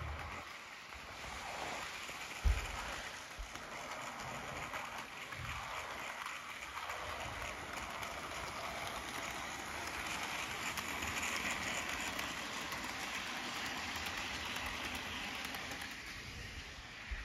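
Bachmann Yuletide Special model train running on its track: a steady rolling, whirring hiss of the wheels and motor, louder for a few seconds past the middle as the locomotive comes close. A single low knock sounds about two and a half seconds in.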